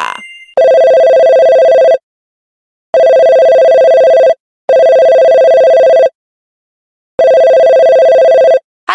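Phone ringtone sound effect: four rings of a steady electronic two-tone ring, each about a second and a half long, with silence between them.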